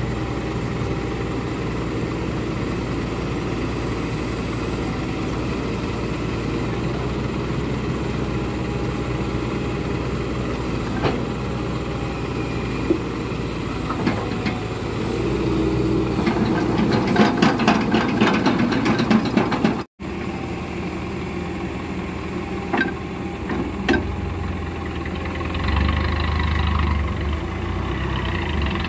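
Hitachi excavator's diesel engine running steadily while it handles logs with a grapple, with a few sharp knocks. Partway through, the engine works harder for a few seconds with a rapid clatter, and the sound drops out for an instant at an edit.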